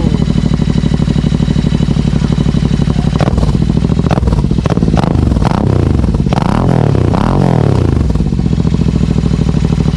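Royal Enfield Interceptor 650's parallel-twin engine running loud through aftermarket TEC slip-on mufflers. It idles steadily, is revved several times in quick succession from about three seconds in, pitch rising and falling each time, then settles back to idle near eight seconds.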